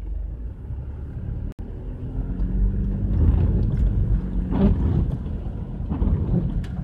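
Mitsubishi Delica L400 driving over a rough, wet gravel track, heard from inside the cab: the engine running over a steady road rumble, with a few short knocks from the bumpy surface. The sound breaks off for a moment about a second and a half in, then runs on louder.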